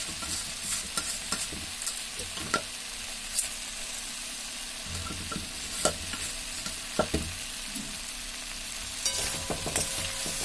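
Indian jujubes and lumps of jaggery and sugar sizzling in hot oil in a pan, with a steady hiss. A metal spoon stirs them and clinks against the pan a few times.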